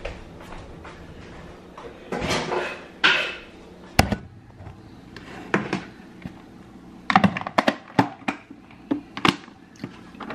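Kitchen handling noises: a rustle about two seconds in, a sharp knock at four seconds, then a run of quick clicks and taps as a plastic food container is handled.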